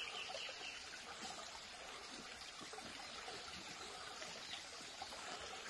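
Faint, steady background hiss of outdoor ambience, with a few light rustles.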